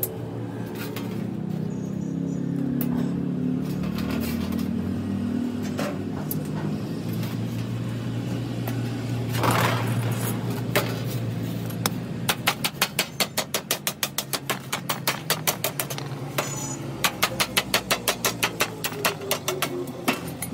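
A wooden mallet beats a metal sheet in quick, even knocks, about four a second, in two runs from about halfway through. The sheet's edge is being bent over a wooden block. A low steady hum lies under it.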